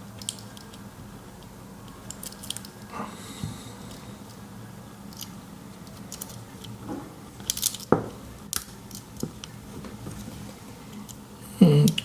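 Scattered light clicks and taps of a pocketknife and small metal parts being handled, with a few quick ones together about eight seconds in.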